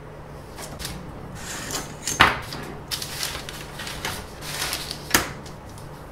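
Paper rustling and tools handled on a workbench, with two sharp knocks, one about two seconds in and one about five seconds in.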